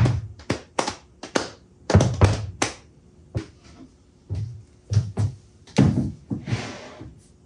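A run of sharp thunks and taps, a few a second and irregular, from things being handled and knocked against a bench lathe and the cabinet under it. Near the end comes a longer scraping sound.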